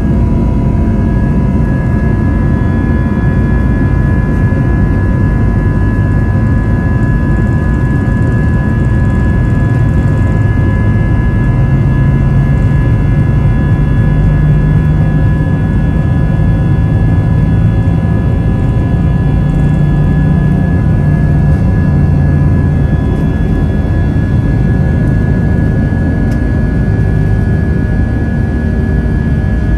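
Airbus A320's jet engines at takeoff thrust during the takeoff roll, heard from inside the cabin: a loud, steady roar with high whining tones over a deep rumble.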